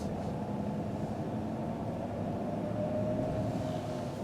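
Steady engine and road noise of a car as heard from inside the cabin.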